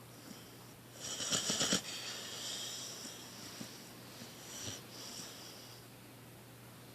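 Sleeping dog snoring: one loud snore about a second in, then a long hissing breath that trails off over the next few seconds.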